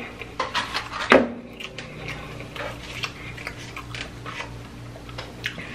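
Close-miked eating: chewing and wet mouth clicks, with small clicks and knocks from handling the takeout food and containers, over a steady low hum.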